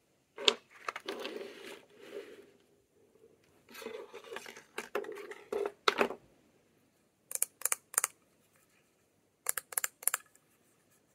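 Lip balm packaging being handled and opened: two stretches of crinkling and tearing with sharp clicks between them, then two runs of three quick clicks in the second half.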